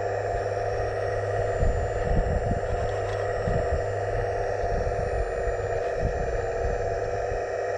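Hydraulic pump of a 1/15 scale RC excavator running with a steady whine, with irregular low thumps and rumbles through the middle.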